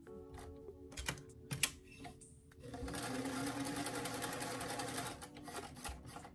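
Sewing machine running a long basting stitch along a sleeve cap in one steady run of about two seconds midway through, with a few sharp clicks of handling before and after.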